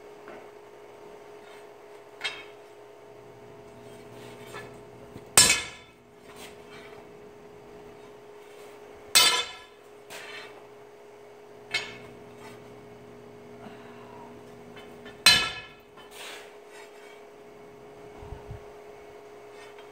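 Hammer blows on a hot square steel bar on the anvil, struck one at a time a few seconds apart: three heavy ringing blows and several lighter taps, as the bar is straightened. A steady hum from the forge runs underneath.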